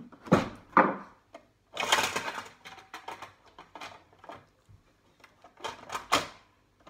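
Singer household sewing machine being worked by hand at its bobbin winder: a series of mechanical clicks and knocks, with a short noisy burst of the mechanism running about two seconds in and more clicks near the end.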